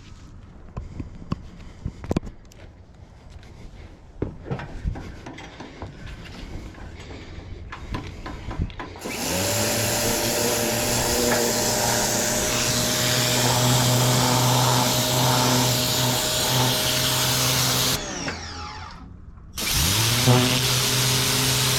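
Westinghouse electric pressure washer motor and pump starting up about halfway through, after some scattered clicks and knocks, and running steadily. Near the end it winds down to a stop, then starts up again about two seconds later.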